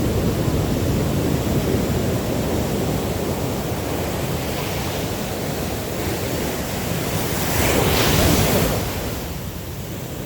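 Sea surf washing on a beach with wind buffeting the microphone, a steady rushing noise. A louder wash swells about eight seconds in and then eases off.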